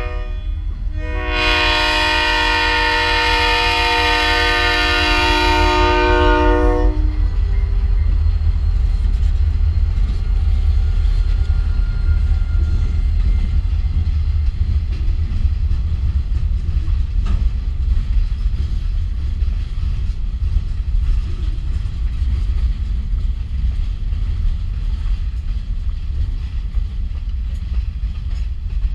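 Diesel freight locomotive's air horn sounding one long blast for the road crossing, from about a second in to about seven seconds in. Then the steady low rumble of the locomotive passing and freight cars rolling over the rails.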